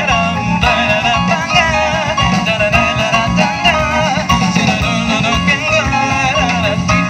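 Live jazz band playing, with a violin lead line over electric guitar, keyboard and drums.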